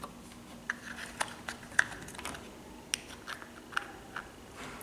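Small plastic toy kitchen pieces clicking and tapping as they are handled and set down on a table: about a dozen light, irregular clicks, the sharpest near two seconds in.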